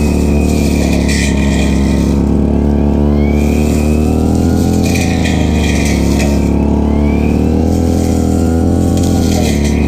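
Stihl FR3001 backpack brush cutter engine running at high throttle while cutting grass. The engine pitch dips slightly and recovers in a regular cycle about every four seconds, along with swishing bursts as the blade sweeps through the grass.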